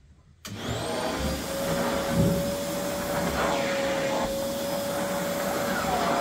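Canister vacuum cleaner running, its floor nozzle pushed back and forth over a rug. It starts abruptly about half a second in, then runs steadily with a constant motor whine.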